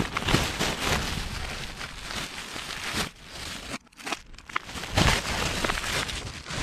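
Plastic rubbish and packaging crinkling and rustling as it is handled and dropped into a litter bin. The crinkling comes on and off, with a moment's pause about four seconds in.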